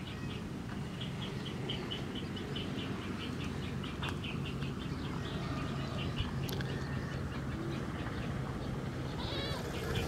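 An animal calling in a fast run of short high chirps, several a second, over a low steady hum.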